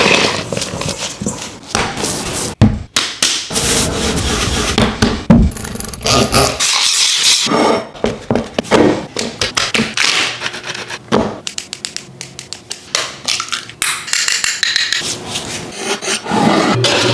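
A quick run of pastry-making sounds: cold butter scraped over a metal grater into flour, hands working dough in a bowl, and a knife cutting into a raw pie crust, with many short taps and scrapes.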